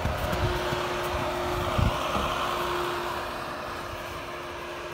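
Volkswagen Amarok V6 diesel engine running with a steady hum over a broad rushing noise. Low buffeting thumps come through, loudest about two seconds in, and the sound eases off somewhat in the second half.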